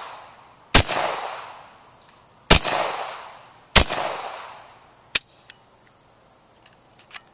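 Three shots from a Cobray M-11 9mm semi-automatic pistol, about one, two and a half and four seconds in, each followed by a long echoing decay. Two short sharp clicks follow about a second after the last shot.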